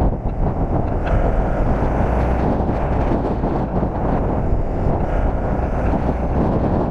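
Wind buffeting the microphone of a camera riding a downhill longboard at speed, over the steady noise of the board's wheels rolling on asphalt.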